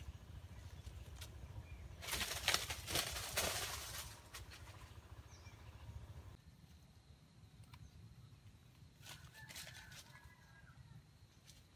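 A junglefowl rooster's wings flapping hard in a dense burst lasting about two seconds, then quieter rustling. Near the end come a few faint flaps and a short bird call.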